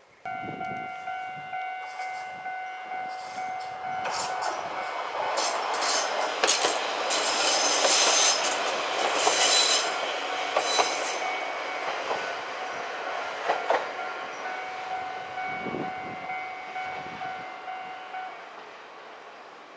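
A level-crossing bell rings steadily in pulses while a Kominato Railway diesel railcar runs by, its wheels clacking over the rail joints with some high squeal as it passes. The train noise swells and fades, and the bell stops a couple of seconds before the end.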